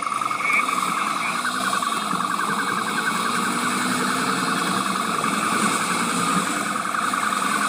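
Police siren sounding in a rapid yelp, its pitch sweeping up and down several times a second, over a steady background rumble.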